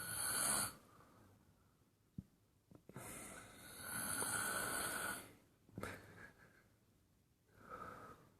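Loud, noisy breaths close to the microphone, heard as a short breath at the start, a long drawn breath of about two seconds midway, and brief breaths near the end.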